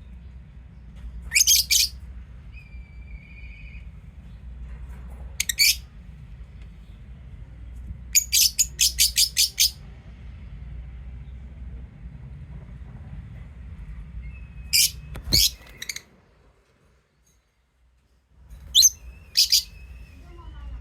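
Lovebirds giving short, shrill, high-pitched chirps in scattered bursts, including a fast run of about seven chirps near the middle, over a low steady hum that stops for a couple of seconds near the end.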